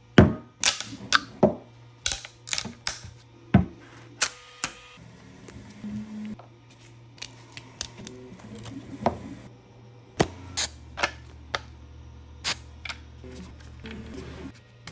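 A quick run of sharp clicks and taps of hard plastic pieces being handled and set down, over a low steady hum, with a second deeper hum joining late on.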